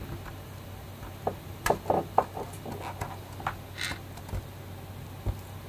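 Handling noise from a hand turning a plastic 3D-printed figure: scattered light clicks and taps, several close together around two seconds in, and a couple of soft low thumps near the end, over a faint steady low hum.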